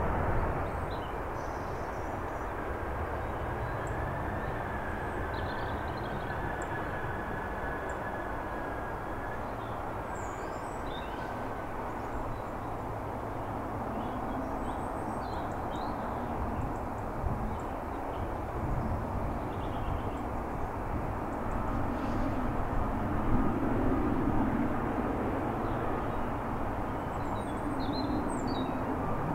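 Boeing 777-300ER with GE90 turbofans landing and slowing on the runway, then taxiing: steady jet engine noise heard from a distance, with a faint high whine in the first ten seconds or so.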